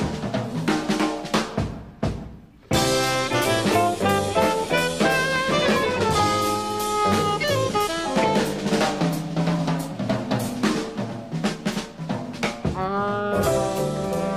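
Jazz drum kit played solo for about two seconds, a short gap, then the band comes back in: alto saxophone leading a swinging melody over the drums and rhythm section.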